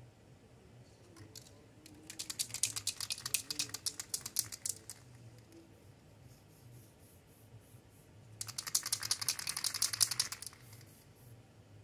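Aerosol spray paint can being shaken, its mixing ball rattling rapidly inside, in two bursts of about two and a half seconds each, about two seconds in and again about eight seconds in.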